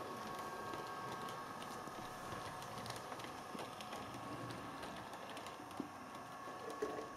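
A model diesel multiple unit train running slowly along the layout's track: a steady small electric motor whine with a light, continual clicking of wheels over rail joints and points. The sound eases off near the end, with a few sharper clicks as the train slows toward a stop.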